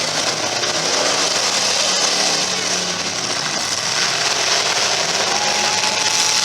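Demolition derby cars' engines running and revving together in a loud, steady din, with a thin held tone near the end.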